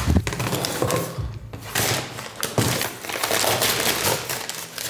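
A package being handled and opened: rustling and crackling of packaging with many quick clicks and taps.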